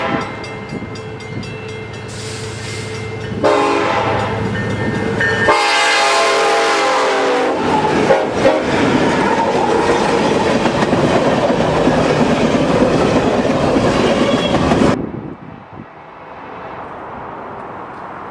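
Nathan K5LA five-chime locomotive air horn sounding two blasts, the second longer. The train then rumbles past, its wheels clattering on the rails, until the sound cuts off suddenly near the end.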